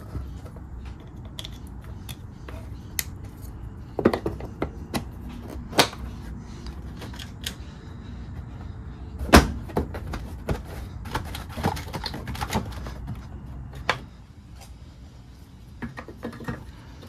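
Hard plastic clicks and knocks of hands pushing license plate light and trim parts into a Toyota Tacoma's plastic rear bumper trim, snapping them into place, the sharpest click about nine seconds in. A low hum underneath stops about fourteen seconds in.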